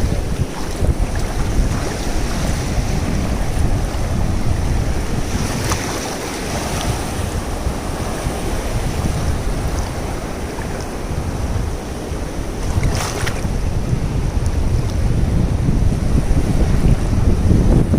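Wind buffeting the microphone in a steady, gusty rumble, with sea waves washing in behind it and a couple of brief clicks.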